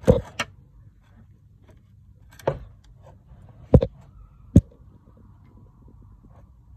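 Five sharp knocks, two in quick succession at the start and three more spread over the next few seconds, from tools working against the car's suspension while the ball joint is checked for play.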